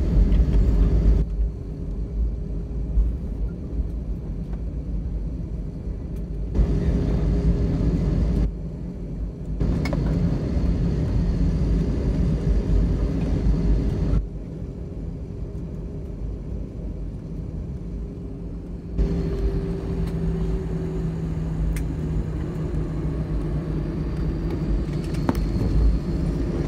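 Cabin noise of an Airbus A330 rolling out on the runway after touchdown: a steady low rumble of wheels and engines. The rumble jumps louder or quieter in sudden steps several times, and a steady hum comes in about two-thirds of the way through.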